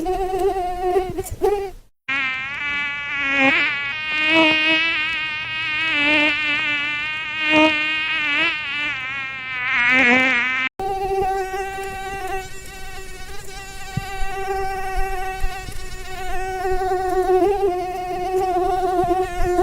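Mosquito wings whining in flight: a high, thin buzz with many overtones. About two seconds in it cuts to a wavering whine that swells and fades as if the insect were passing close. Near the middle it cuts back to a steady hum.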